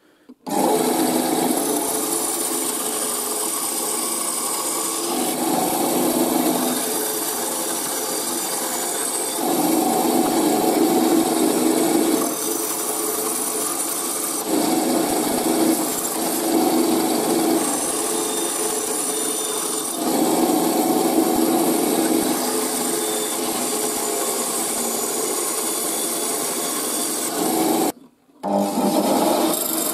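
Small power tool working a block of wood, a steady mechanical noise that grows heavier and eases off every few seconds as the wood is fed in and backed off, cut short briefly near the end.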